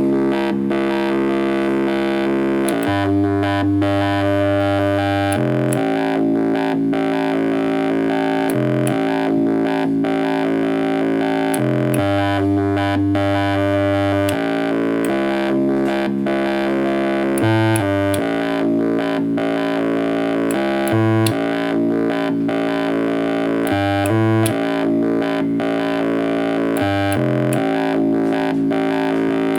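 Proton, a DIY synthesizer built around a single IC, playing a sequencer-driven run of sustained notes rich in overtones, its pitch stepping to a new note every half second to few seconds.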